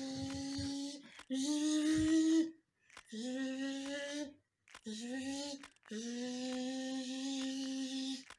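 A woman buzzing like a bee: about five long drawn-out buzzes at a steady pitch, each a second or so, with short breaks between them. The second buzz is higher and loudest.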